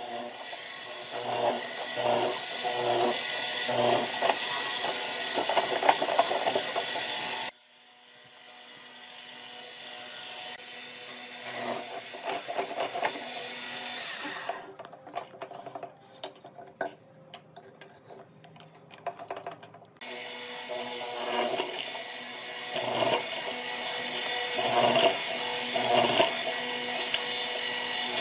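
Bench hollow-chisel mortiser running, its square chisel and auger bit boring into a wooden beam in a run of plunges at first. The machine goes quiet suddenly for several seconds in the middle, leaving only scattered clicks, then starts cutting again.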